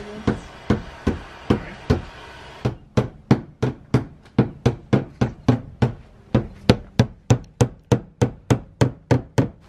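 Metal hammer striking the sheet-steel lip inside a Lexus IS's rear wheel arch in a steady run of blows, rolling the fender lip up so the tyre clears it. The blows come about two a second at first, then quicken to about three a second from around three seconds in.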